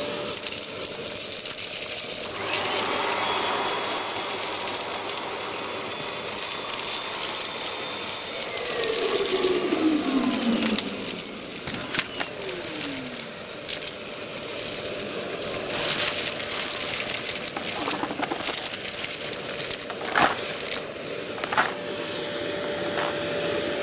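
Kärcher multi-purpose wet-and-dry vacuum cleaner running steadily with a constant whine, sucking up dust, shingle and small stones, with occasional sharp clicks and rattles as stones are drawn in.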